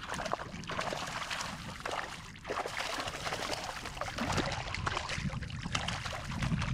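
Water splashing and lapping close by, with wind rumbling on the microphone that grows stronger in the second half.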